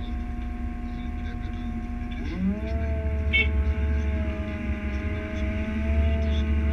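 Caterpillar M320F wheeled excavator's diesel engine heard from inside the cab, running steadily with a deep rumble. About two seconds in, its pitch rises and then holds higher as the machine is worked.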